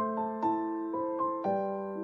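Background piano music: single notes and chords struck about twice a second and left to ring.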